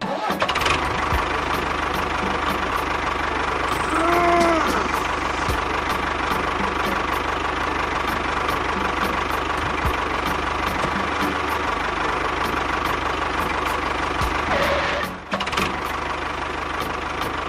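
A motor runs steadily, with an even clicking about two to three times a second. A short rising-and-falling tone sounds about four seconds in, and the running dips briefly near the end.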